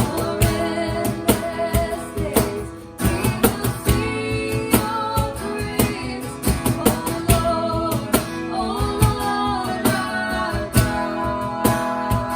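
Church worship band playing: strummed acoustic guitar over a steady beat, with singing.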